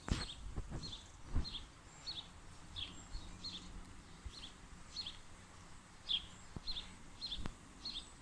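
A small bird chirping over and over: short, high notes, often in pairs, every half second or so, with faint outdoor background noise and a few soft knocks.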